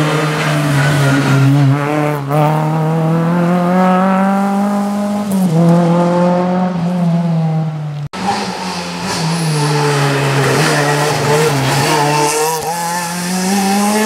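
Renault Clio rally cars' four-cylinder engines driven hard through the bends of a tarmac stage, one car after the other. The first engine's pitch climbs, dips briefly at each gear change about 2 and 5 seconds in, then falls away. After a cut about 8 seconds in, a second engine dips and climbs again toward the end.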